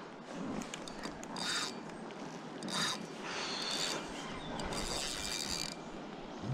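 A fishing reel's drag clicking and buzzing in about four runs of up to a second each, as a hooked wels catfish pulls line off the spool.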